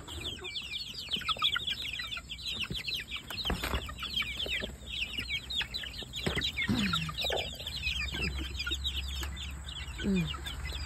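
A brood of young chicks peeping loudly and continuously in a rapid stream of short high chirps. Twice a lower, falling cluck from an older chicken cuts in, and there is a single knock about three and a half seconds in.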